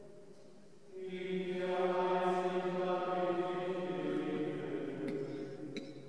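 Benedictine monks singing Gregorian chant in unison in a large, echoing abbey church. After a short pause a new phrase begins about a second in, holds, and dies away in the reverberation near the end, with a couple of faint clicks.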